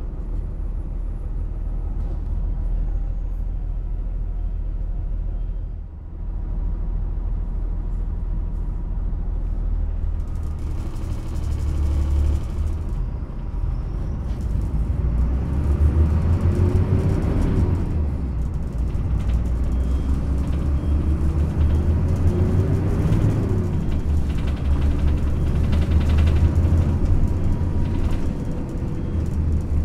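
Yutong ZK6128HG low-floor city bus under way, heard from inside the cabin: a steady low engine and road rumble. In the second half, tones rise and fall a few times as the engine pulls through its ZF automated gearbox.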